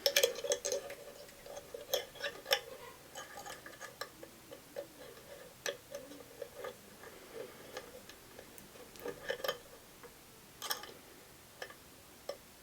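Light, irregular clicks and taps of a small bent-metal trigger being handled and fitted by hand, in short clusters with pauses between.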